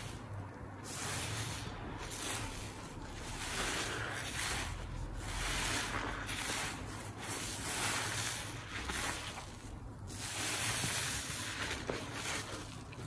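A soap-loaded kitchen sponge squeezed and kneaded by gloved hands in thick dish-soap suds, giving wet, sudsy squeezing sounds that swell and fade every second or two.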